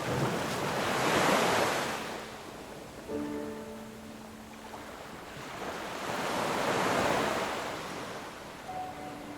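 Sea waves washing in, swelling and fading twice in slow surges. Soft sustained music notes enter about three seconds in underneath.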